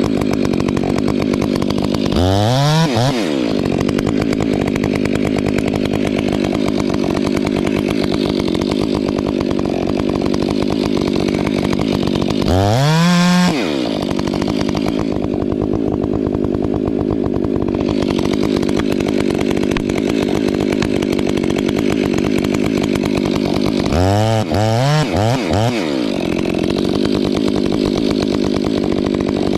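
Stihl 500i two-stroke chainsaw running steadily under load as it cuts into a balsam fir on the back cut. Its revs climb sharply and drop back near the start and again about midway, then rise and fall in a few quick blips near the end.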